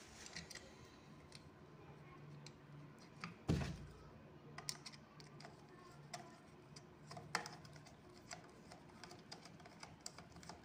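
Faint, scattered small clicks and taps of a screwdriver turning a fixing screw into a sewing machine's shuttle mount, with one louder knock about three and a half seconds in.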